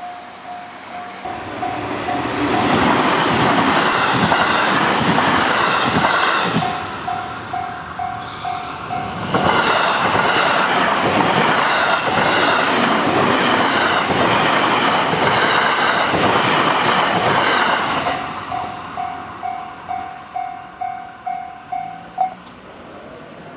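Japanese level-crossing warning bell ringing in a steady electronic ding about two and a half times a second while trains on JR West's Hanwa Line pass twice with loud wheel and rail noise, the second pass the longer. The bell keeps ringing after the second train and cuts off a little before the end as the crossing clears.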